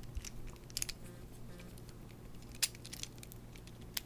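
Plastic pieces of a Cube4You 3x3x4 puzzle cube clicking and rattling as they are handled and pressed into place, with a few sharper clicks, one about two-thirds of the way through and one near the end.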